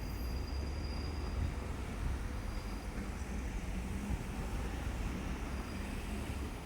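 Diesel railcar running with a steady low engine rumble.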